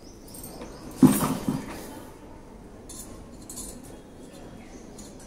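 A dish or pan clattering against the compost container as kitchen waste is tipped in: one loud knock about a second in, two or three smaller knocks right after, then faint rustling of the scraps.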